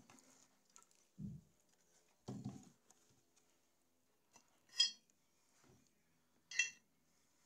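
Amplifier circuit board being handled on a rubber bench mat: two dull knocks, then two short metallic clinks with a ringing tone, the first the loudest.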